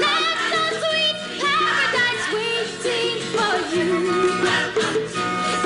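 Music: the song's accompaniment of sustained chords, with a melodic lead line that slides between notes, in a gap between sung lyrics.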